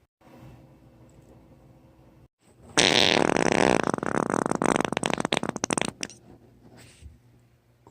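One long, loud fart of about three seconds, starting near the middle as a buzzy blast and breaking into rapid sputters before it cuts off.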